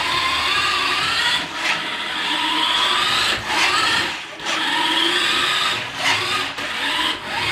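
Electric motor of a 1/10-scale RC Lamborghini Aventador car whining as the car is driven, the pitch rising and falling with the throttle, with several short breaks where the throttle is let off.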